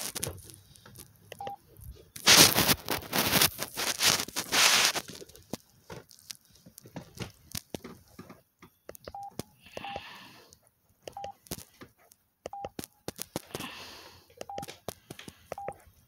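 Samsung SGH-A117 phone's keypad beeps as menu keys are pressed: short single beeps, all at one pitch, spaced about a second or so apart and mostly in the second half, with small key clicks. About two seconds in, a loud rushing noise lasts about three seconds.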